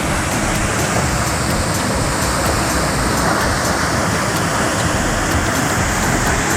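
Waterfall: a loud, steady rush of falling water, even throughout.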